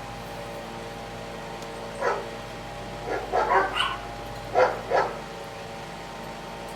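A dog barking: a short bark about two seconds in, a quick run of barks around three to four seconds, and two more near five seconds, over a steady background hum.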